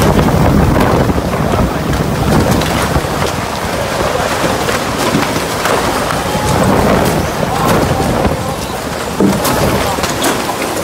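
Typhoon-force wind blowing hard in surging gusts, with rain and wind buffeting the microphone, and scattered sharp ticks throughout.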